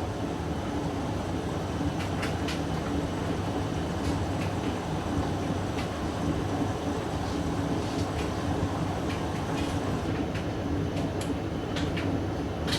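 A household laundry machine running: a steady low motor hum and rumble, with light clicks and taps at irregular moments.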